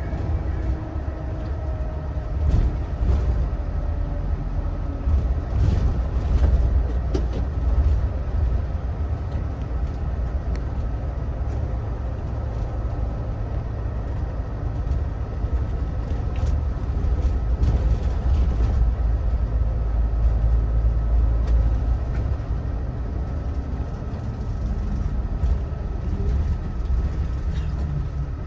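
Mitsubishi Fuso Aero Ace bus heard from inside the cabin while driving: a steady low engine and road rumble, with a faint whine falling in pitch over the first few seconds and occasional light rattles.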